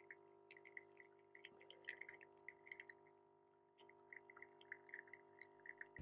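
Faint irregular drips of coffee falling from a Lavazza A Modo Mio Voicy pod machine's spout into a mug, several a second, over a faint steady hum.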